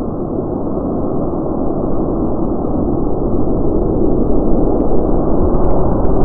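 A large pile of matches burning up into a fireball: a dull, muffled rushing noise that slowly builds in loudness, with sharp crackling pops starting about four and a half seconds in as the flare-up throws sparks.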